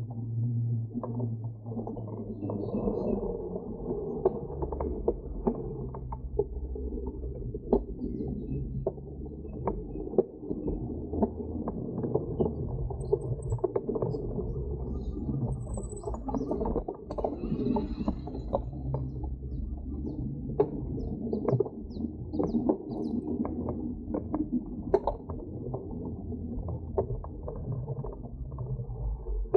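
Bicycle being ridden: a steady low rumble of the tyres rolling on the path, with frequent small clicks and rattles from the bike, sounding muffled.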